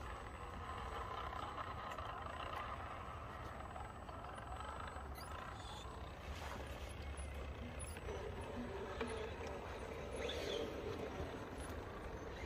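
Electric motor and gearbox of an RC crawler whining as it drives, the whine dropping lower from about eight seconds in.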